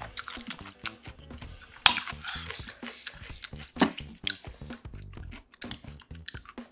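A metal spoon scooping soft-tofu kimchi stew out of an earthenware pot and spooning it into a ceramic rice bowl. It gives sharp clinks against the crockery, the loudest about two seconds in and another near four seconds, with wet dripping of the stew. Soft background music plays underneath.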